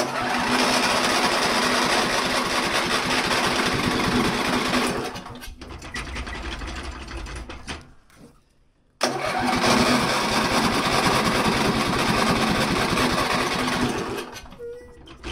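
John Deere L120 riding mower engine cranked with the key and running, in two long goes. It drops off after about five seconds and falls to near silence for about a second, about eight seconds in, before the second go.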